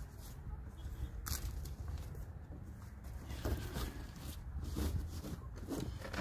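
Cardboard being handled and laid into a raised bed: scattered rustles, scrapes and clicks over a steady low rumble.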